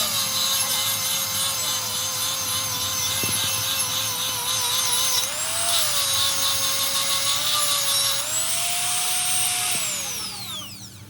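Handheld electric angle grinder working metal: a harsh hiss over a motor whine whose pitch sags under load and rises when the disc is lifted off, twice. Near the end it is switched off and the whine falls away as the disc spins down.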